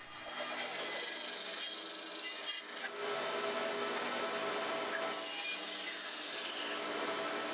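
Bandsaw cutting into a cedar 4x4 leg, clearing the bulk of the waste from a bridle-joint mortise. It is a steady sawing hiss over a faint hum from the saw, with a brief lull about two and a half seconds in.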